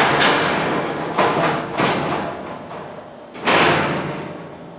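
Four sudden knocks or thuds, each trailing off over about a second, from building material being handled and knocked during ceiling installation work; the loudest comes past the middle.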